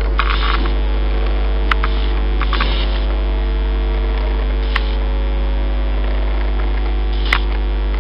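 Steady electrical hum over a deep, even rumble, typical of the inside of an electric multiple-unit train, broken by a few short sharp clicks.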